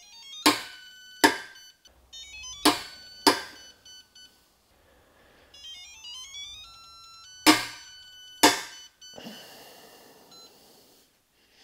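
Click-type torque wrench (Performance Tool, 1/2-inch drive) breaking over on a torque tester: three pulls, each giving a sharp metallic click followed by a second one, with a short ring after each. The wrench is releasing well above its set torque, failing its accuracy test at 30, 90 and 150 ft-lb. Runs of stepped electronic beep tones sound between the pulls.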